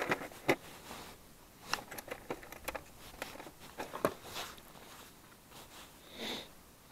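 Handling noises as a skimmer bream is lowered into a keepnet: a scattered run of small clicks, taps and rustles, busiest in the middle, with a short breathy rustle near the end.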